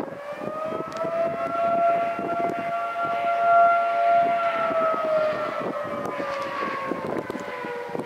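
Federal Signal 2T22 dual-tone outdoor warning siren wailing on the attack signal: the chord rises in at the start, holds for about four seconds, then falls away in pitch through the second half. Wind gusts buffet the microphone underneath.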